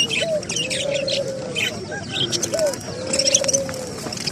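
Birds calling: a tangle of short, high chirps over a low, even, arched call. The arched call sounds twice, each a long held note just after a short upward hook.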